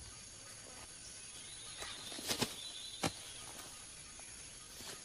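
Tropical rainforest ambience: a steady high-pitched chorus of insects, broken by two sharp cracks or snaps a little past two seconds and about three seconds in.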